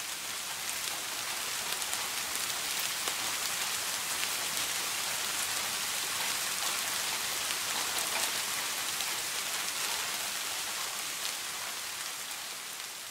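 Steady rain pattering, a dense hiss of fine drops, fading out near the end.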